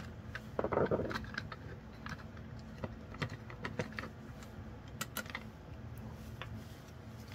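Scattered small clicks and taps of a screwdriver backing screws out of the back of a REV Robotics Pneumatic Hub's housing, with a short burst of handling noise about a second in.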